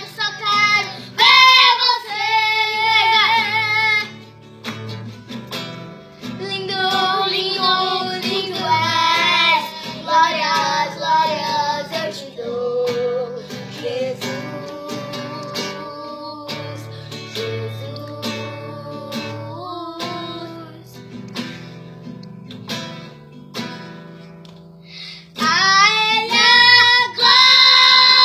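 A song: a high voice singing over plucked acoustic guitar, dropping to a quieter instrumental passage in the middle and the singing coming back loud near the end.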